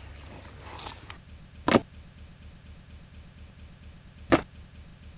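A knife faintly scraping as it scores raw chicken, then two short, loud, sharp sounds about two and a half seconds apart.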